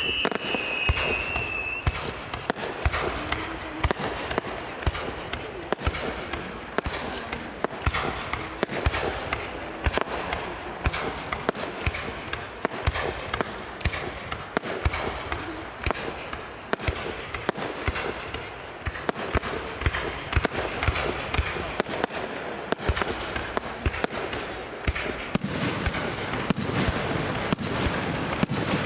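Aerial fireworks bursting in rapid succession: a continuous barrage of bangs and crackles, several each second. A falling whistle fades out in the first two seconds.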